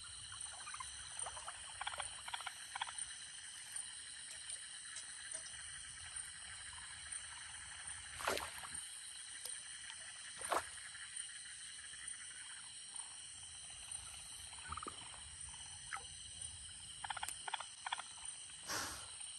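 Steady night chorus of frogs calling. A few sudden splashes in the shallow water as a long fishing spear is worked in it, the loudest about eight and ten and a half seconds in and another near the end.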